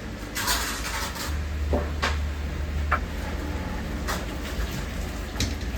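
Kitchen work at a ramen stall: a handful of separate knocks and clinks as utensils, lids and containers are handled, over a steady low hum.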